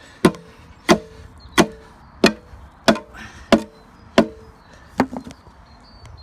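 A hammer striking the end of a wooden board, driving it through clay soil under a wall. There are seven steady blows about one and a half a second, each with a short ring, then a softer knock near the end.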